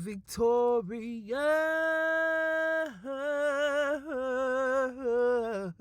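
A solo voice singing a slow, drawn-out phrase with no accompaniment: it holds one long, steady note about a second in, then moves on through wavering notes with vibrato.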